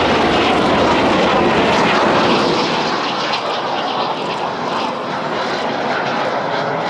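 Jet noise from a Kawasaki T-4's twin turbofan engines as the aerobatic jet flies a smoke-trailing manoeuvre. It is loud over the first couple of seconds, then eases somewhat but stays steady.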